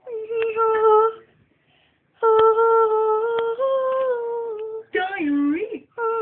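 A person humming long held notes in several phrases with short breaks, one phrase slightly higher, then a swoop down and back up in pitch near the end.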